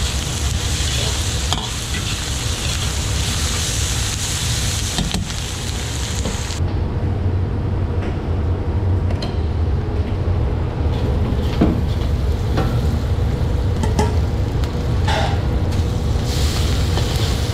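Pork and green peppers stir-frying in a wok: loud sizzling with the metal spatula scraping and clinking against the wok, over a steady low roar. About six and a half seconds in the sizzle drops away, leaving the roar and a few sharp metal clinks, and the sizzling comes back near the end.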